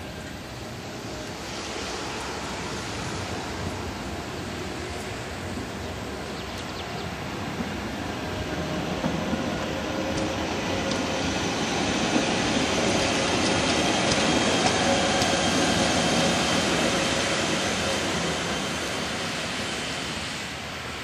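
Berner Oberland-Bahn narrow-gauge electric train pulling out and passing. It grows louder to its peak about two thirds of the way through, then fades as it draws away, with a high steady whine over the wheel noise.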